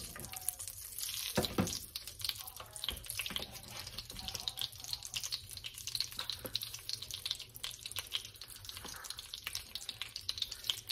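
Brown sugar bubbling and sizzling in a hot pan on the stove: a steady, fine crackle, with a soft knock about a second and a half in.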